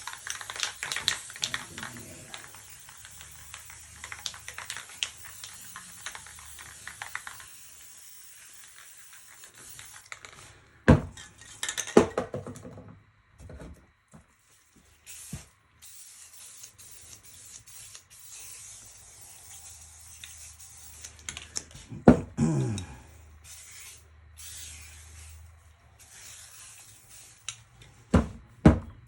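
Aerosol spray paint can spraying in long hisses, two stretches of several seconds each. Between them come a few sharp knocks and clatters.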